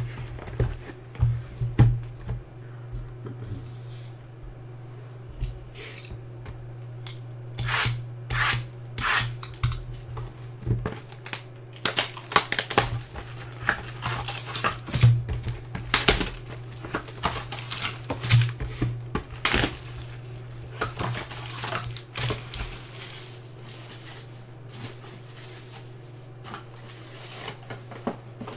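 Hands opening a Five Star baseball card box: cardboard lid and flaps scraping and tapping, and the foil pack wrapper inside rustling and crinkling, in irregular bursts. A steady low hum runs underneath.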